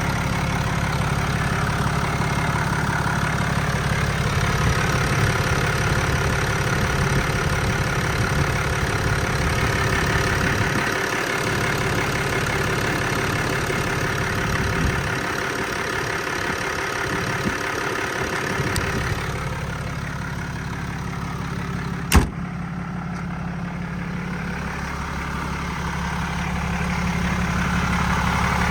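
Cab view of a 2019 Ram 5500's 6.7-litre Cummins turbo-diesel running during a drive, a steady hum of engine and road noise. One sharp click comes about 22 seconds in.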